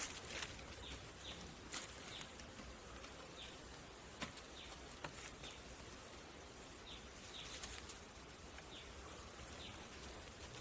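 Quiet outdoor ambience with scattered short bird chirps and a few sharp taps or clicks, plus faint high squeaks near the end.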